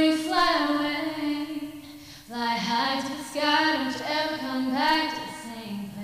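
A young woman singing solo with no accompaniment, picked up close on a lavalier microphone. She sings several phrases of long, wavering notes that bend up in pitch.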